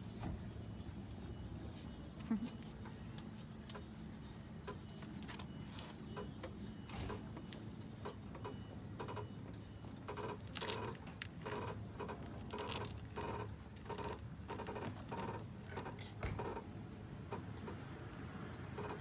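Small screw-type car jack being cranked by hand with its rod handle, lifting the car: a rhythmic mechanical squeak-and-click at about two strokes a second, which grows stronger about halfway through.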